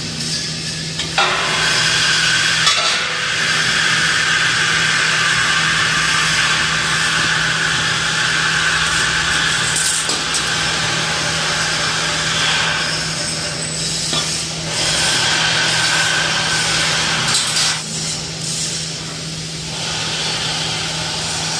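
Steady machinery noise of a steel fabrication shop: a continuous hiss over a constant low hum, dropping away briefly a few times, with a couple of sharp metal knocks in the first few seconds.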